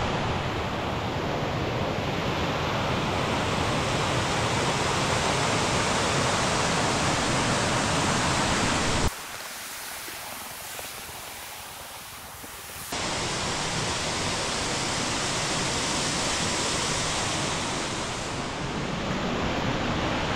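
Steady rush of falling water from a waterfall. About nine seconds in it drops to a quieter, thinner hiss for about four seconds, then the full rush returns.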